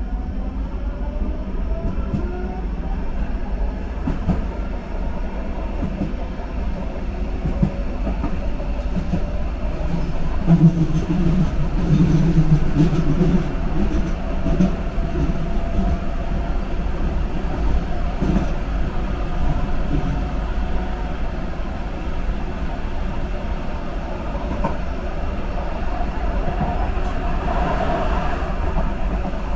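Subway train in motion: a steady rumble of wheels on the rails. The whine of the electric motors glides upward in the first few seconds, and the low rumble grows louder for a few seconds about a third of the way in.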